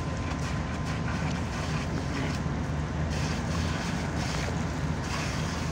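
An engine running steadily with a low, even rumble, and some wind noise on the microphone.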